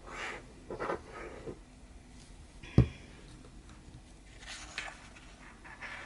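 Paper being handled and shuffled on a craft table, in short soft rustles, with one sharp tap of something set down or struck on the table about three seconds in.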